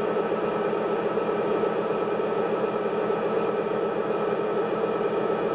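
An O scale model diesel locomotive running in place on roller stands, its wheels turning on the rollers. It makes a steady mechanical running sound with a fast, even pulse.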